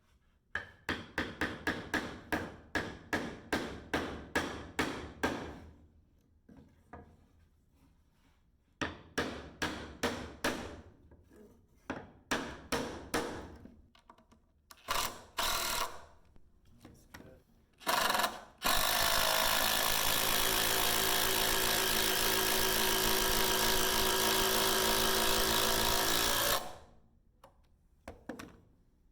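Rapid series of sharp hammer or mallet blows, about three a second, in several runs with short pauses. Then a handheld power tool starts and runs steadily for about eight seconds before stopping.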